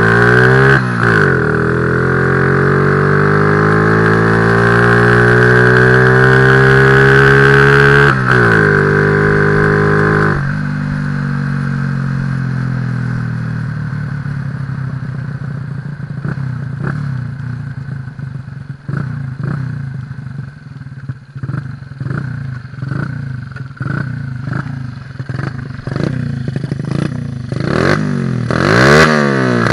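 Honda C70 with a 122cc race engine and Keihin PWK 28 mm carburetor, ridden hard: the engine pitch climbs through the gears, dropping at shifts about a second in and about eight seconds in. Around ten seconds in the throttle closes and it runs lower and rougher. Near the end the engine is blipped in quick revs. It runs on the carburetor's standard, untuned jetting.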